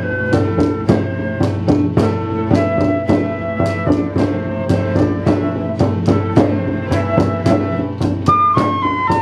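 Early-music ensemble playing a lively piece: sustained melody instruments over a steady hand-drum beat of about four strokes a second, with the melody stepping downward near the end as the piece closes.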